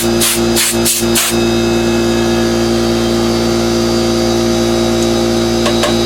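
Compressed air blowing dust out of a Dell Inspiron 545s desktop computer. It starts as a rapid run of short hissing blasts, about three a second, and turns into one continuous blast about a second in, over the steady hum of a running motor.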